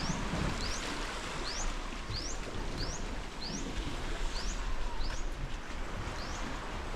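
A bird repeating a short, high, rising chirp about once every three-quarters of a second, over a steady wash of background noise.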